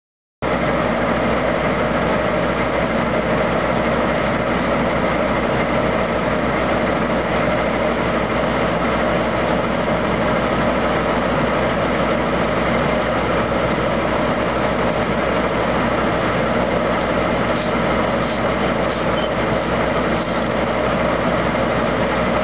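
1970s Foley Belsaw circular sawmill driven by a tractor's PTO, running steadily with no change in load. The sound starts abruptly about half a second in.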